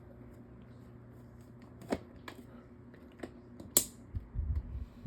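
Lasko 18-inch table fan motor running on low speed with a steady hum, the weird hum typical of the matching Lasko pedestal fan motor. A few sharp clicks come over it, the loudest nearly four seconds in, followed by some low thuds.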